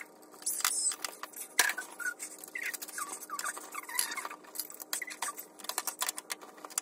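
Fast-forwarded handling sounds: a rapid stream of clicks and clatters as plastic and glass makeup and skincare containers are picked up and set down on a bathroom counter, mixed with short squeaky chirps from sped-up voice sound.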